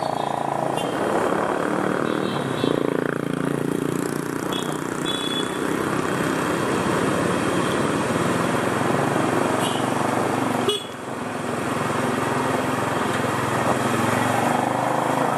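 Motorcycle engine running as it rides through city traffic, with rushing noise and the sounds of the cars around it. The sound drops sharply for a moment about eleven seconds in.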